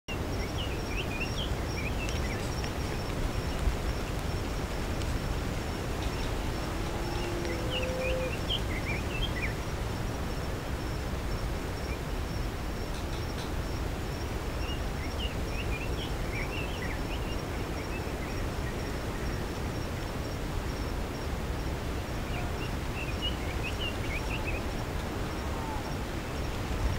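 Outdoor valley ambience: a steady background noise, an insect's high pulsing trill running throughout, and short bursts of bird chirping that come back four times, about every seven seconds.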